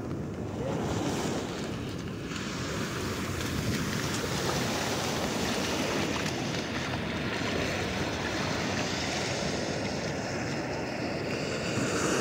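Ocean surf breaking and washing up the sand in a steady rush, growing a little louder about two seconds in.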